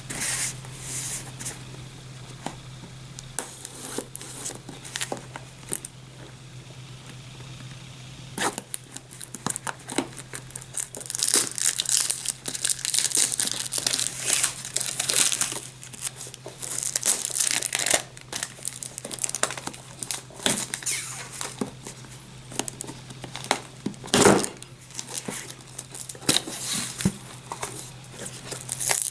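Product packaging being unwrapped by hand: plastic wrapping crinkling and tearing in irregular rustles, densest in a long stretch of crinkling in the middle, with one sharp knock about three-quarters of the way through. A steady low hum runs underneath.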